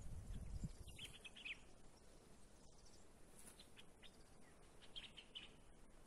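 Faint bird chirps over near silence: a short group of high chirps about a second in and another around four to five seconds in. A few low thuds in the first second.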